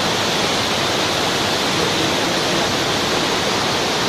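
Rain-swollen river in flood pouring over a rocky waterfall: a steady, even rush of water at high force.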